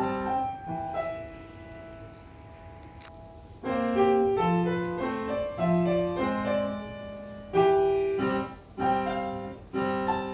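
Background piano music: a soft, sparse phrase, then fuller, louder chords from about four seconds in.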